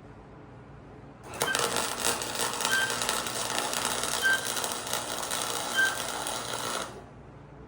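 Welding arc crackling and sizzling steadily as a bead is laid. It starts about a second in and cuts off sharply about seven seconds in.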